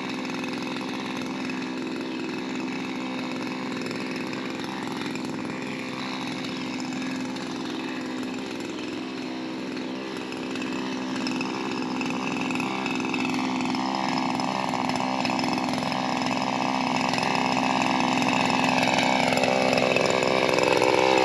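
Shindaiwa M230 multitool's small two-stroke engine driving its pole saw attachment at high speed through tree limbs. It grows louder over the second half, then winds down in pitch near the end as the throttle is released.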